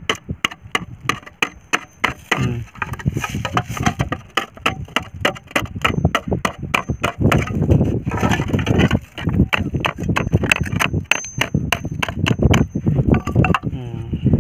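A hammer repeatedly striking a thin tin sheet laid on a granite rock, a quick, uneven run of sharp metallic taps as the sheet's edge is folded over.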